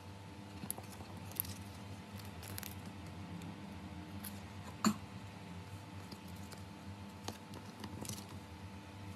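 Thin clear plastic photocard sleeves rustling and crinkling as cards are slid out and handled, with small clicks and one sharper tap about halfway through, over a faint steady hum.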